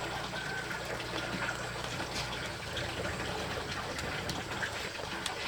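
Steady running water, with a few faint clicks over it.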